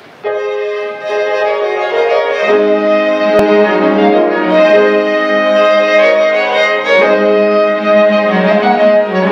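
Hymn introduction played by a small ensemble of violins, coming in suddenly with sustained notes; lower, deeper notes join about two and a half seconds in.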